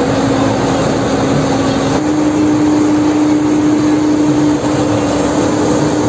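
Sakai single-drum road roller's diesel engine running loud and steady, with a steady hum that steps slightly higher in pitch about two seconds in.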